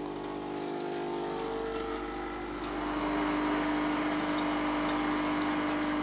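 Gaggia Classic espresso machine's vibratory pump buzzing steadily during a flush, with water splashing from the group head into a glass jug. The buzz gets louder about three seconds in.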